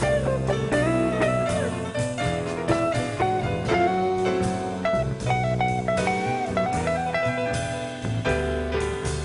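Jazz electric guitar solo on a Telecaster-style guitar, playing held single-note lines over upright bass and drums.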